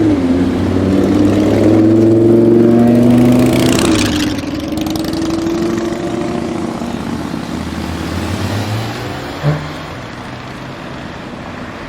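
Audi R8 V10 Plus's V10 engine through a Capristo exhaust, accelerating loudly with its pitch rising over the first four seconds. It then drops back to a lower, steadier engine note, with one sharp pop about nine and a half seconds in.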